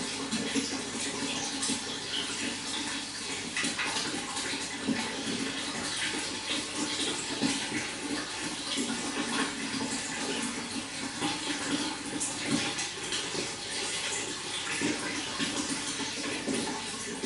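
Running water splashing steadily, with a dense, continuous patter.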